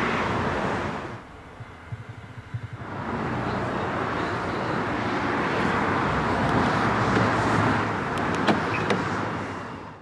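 The 5.2-litre V10 of a Lamborghini Huracán LP610-4, fitted with the optional racing exhaust, idling just after start-up. It drops away for about two seconds soon after the start, then comes back up, holds steady, and fades near the end.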